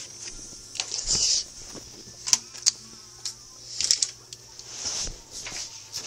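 Handling sounds of a sheet of paper and a pen being set out for drawing: short rustles of the paper and a few sharp clicks.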